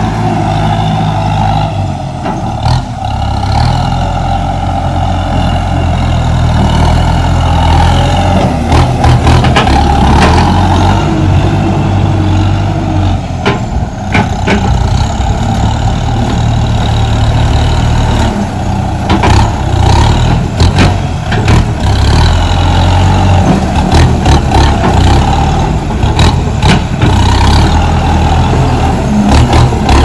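Farm tractor's diesel engine working under load as it pushes soil with a front dozer blade, its note rising and falling as the throttle and load change, with scattered knocks and clatter mixed in.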